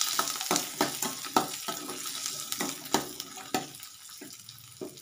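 Sliced shallots and garlic sizzling in sesame oil in a stainless steel pan, stirred with a metal spoon that scrapes and clicks against the pan about ten times. The sizzle slowly fades.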